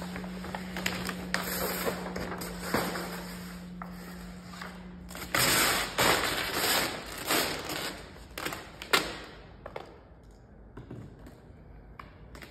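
A large sheet of vinyl wrap film and its paper backing rustling and crinkling as they are handled and pulled. The crinkling comes in irregular bursts, loudest and densest from about five to nine seconds in, then dies down to a few faint crackles.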